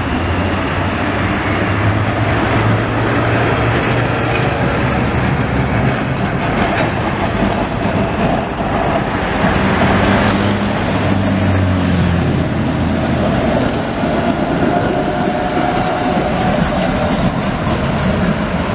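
Trams running along street tracks among city traffic: a steady rumble of steel wheels on rail mixed with passing cars. A low engine hum swells twice as vehicles pass close, in the first few seconds and again about halfway through.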